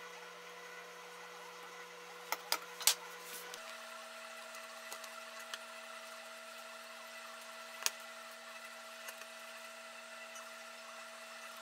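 Quiet kitchen room tone: a faint steady hum that shifts pitch about three and a half seconds in, with a few light clicks and taps, three close together a couple of seconds in and one more near the middle.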